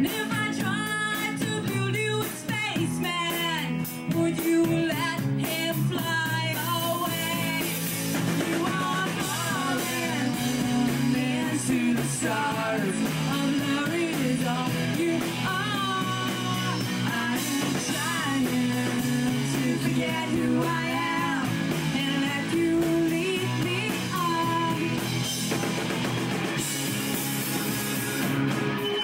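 Live rock band playing: electric guitars, a drum kit and singing. About seven seconds in the band comes in fuller and brighter, with the cymbals filling the top.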